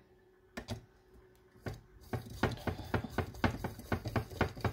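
Espresso leveling tool being pressed and turned on a portafilter basket of ground coffee: a couple of clicks, then from about two seconds in a quick run of knocks and clicks, about five a second, with scraping between them.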